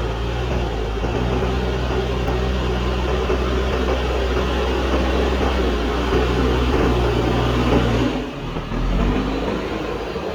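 JCB backhoe loader's diesel engine running steadily under load, with a deep, even hum; about eight seconds in the sound changes abruptly.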